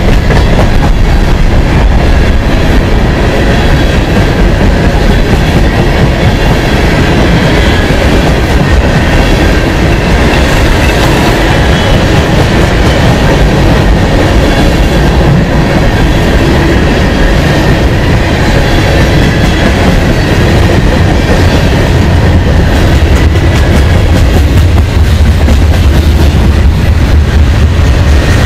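Freight train rolling past, a steady loud rumble of steel wheels on rail.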